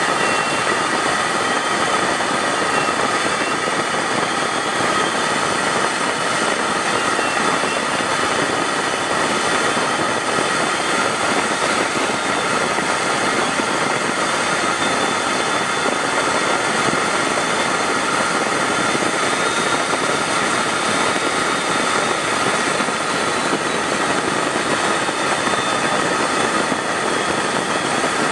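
Steady in-flight jet aircraft noise: an even rush of engine and air with several steady high whining tones on top, unchanging throughout.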